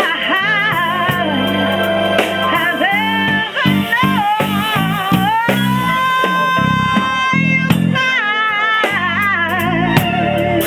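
Woman singing a soul song with a wavering vibrato over a live band's electric bass and drum kit. She holds one long note in the middle.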